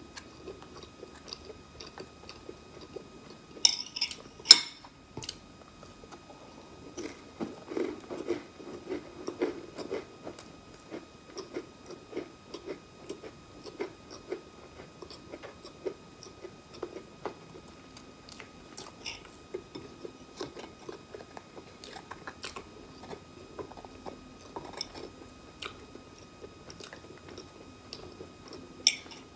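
Close-miked eating of round crackers spread with guava jam. Two loud crunches about four seconds in are the cracker being bitten, followed by a long run of soft, rhythmic chewing, with a few sharp crunches again near the end.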